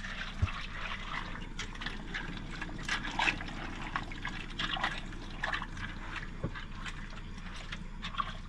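A spoon stirring a pot of dry pasta, diced tomatoes and water: wet sloshing with many small irregular clicks and scrapes, over a steady low hum.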